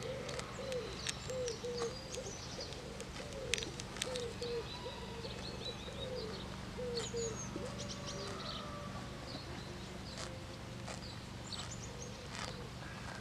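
A pigeon cooing in a repeated phrase of short low notes through the first half, with small birds chirping higher up. Sharp crisp clicks throughout, the loudest sounds, are the horse tearing and cropping grass as it grazes.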